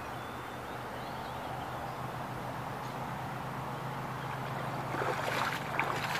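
Electric motor of a radio-controlled speedboat running steadily as the boat cruises, a low hum under wind and water noise, on a battery that is running down. A few sharp clicks near the end.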